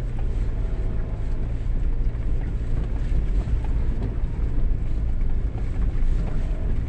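Car engine pulling in low gear up a steep hill, a steady low drone.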